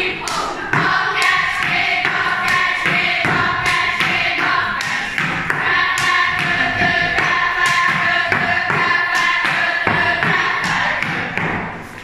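A group of girls singing a folk song together while beating wooden threshing flails on the floor in a steady rhythm, a mock threshing performed as a dance. The singing and knocking trail off just before the end.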